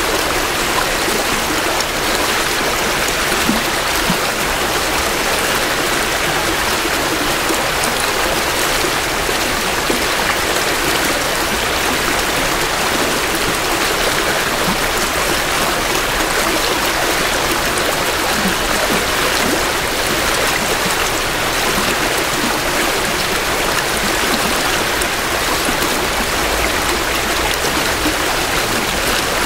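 Creek water flowing steadily over rocks, heard close from the bank: an even rush and babble of spring runoff that does not let up.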